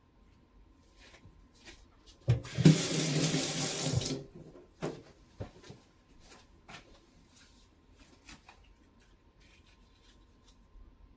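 Kitchen tap turned on and running into the sink for about two seconds, then shut off, followed by a few light clicks and knocks.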